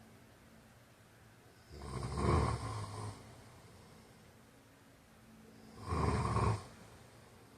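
A man snoring: two loud snores about four seconds apart.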